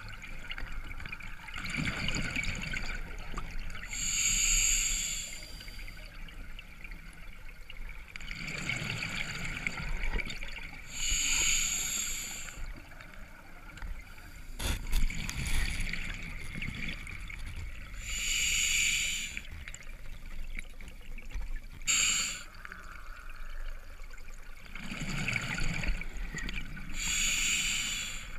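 A scuba diver breathing through an open-circuit regulator underwater: slow, repeating cycles of regulator hiss and bubbling exhaust, about one breath every seven seconds.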